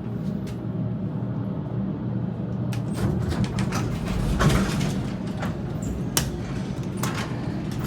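Steady low machinery hum inside a stalled hydraulic elevator cab. Scattered clicks and knocks begin about three seconds in, typical of the door or controller mechanism working while the cab fails to move.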